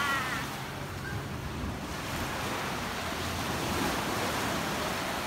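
Steady rushing of waves breaking on a beach, mixed with wind on the microphone.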